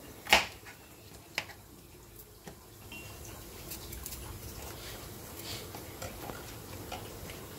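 Kitchen knife cutting a green sweet pepper on a plastic cutting board: a few sharp clicks as the blade goes through and meets the board, the loudest about a third of a second in, then fainter ones spread out.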